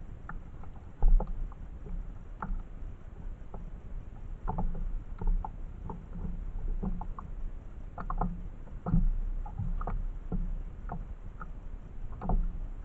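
Irregular small knocks and clicks on a kayak as a fishing rod and spinning reel are handled aboard, with one sharper knock about a second in.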